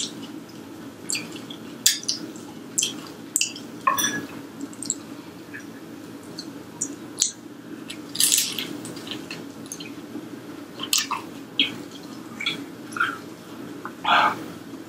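A person biting into and chewing a deep-fried egg roll, with scattered short crackles and wet mouth clicks over a faint steady hum.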